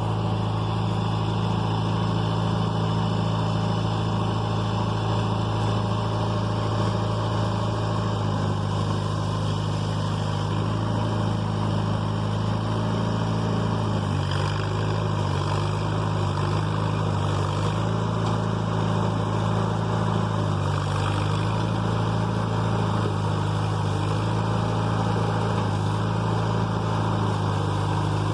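Backhoe's diesel engine running steadily, its pitch dipping and rising slightly a few times as the load changes.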